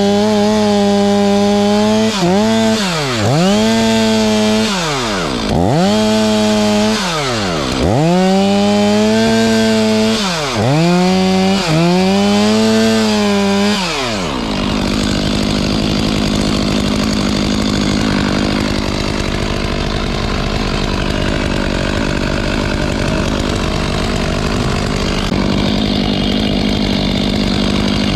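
Two-stroke chainsaw at full throttle. For about the first half its engine note dips and climbs back again and again as the throttle is let off and opened. It then holds a steady high pitch with a rough, noisy edge while cutting through wood.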